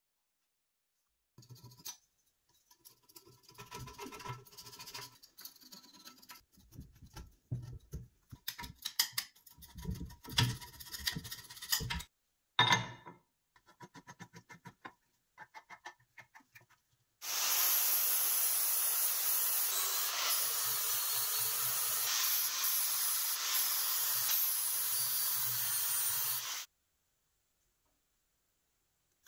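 Metal tools and parts being handled on a cast-iron vise: irregular clicks, scrapes and rubbing, then one sharp clank and a few light clicks. After that comes the loudest sound, a strong steady hiss lasting about nine seconds that cuts off suddenly.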